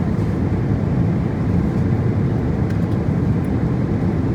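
Steady low rumble of a Boeing 777-300ER's engines and airflow, heard inside the passenger cabin in flight.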